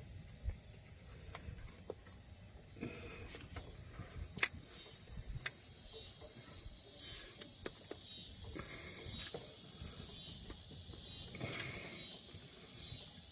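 Scattered light clicks and knocks of spark plug wire boots being handled and pushed home onto their terminals. Behind them, a faint high warbling tone rises and falls about once a second.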